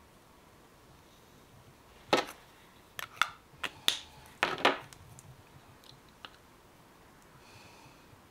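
Catrice metallic lipstick's cap being snapped on and pulled off its gold case: a cluster of sharp plastic clicks between about two and five seconds in, then a couple of faint ticks.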